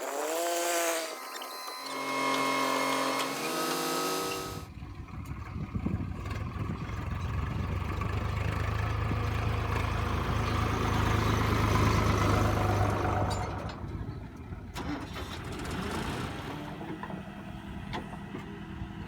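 A short pitched intro sound that cuts off suddenly about four and a half seconds in, then the diesel engine of heavy earth-moving machinery running under load. It grows louder in the middle, then eases back near the end.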